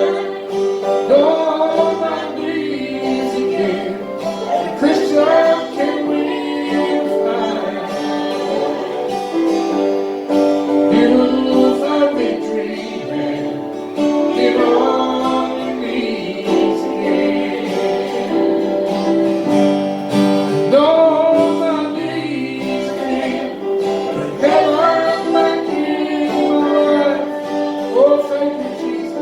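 A gospel song sung with guitar accompaniment.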